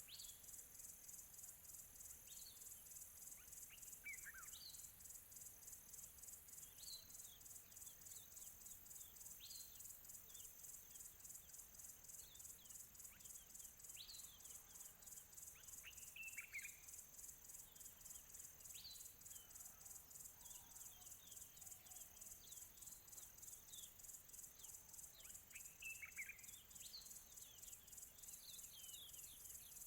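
Faint nature ambience: insects trilling steadily in a high, fast even pulse, with small birds giving short chirps that sweep downward in pitch, scattered every couple of seconds.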